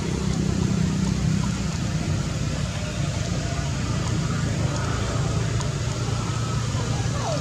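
Steady low engine hum with an even background hiss, and a faint short falling squeak near the end.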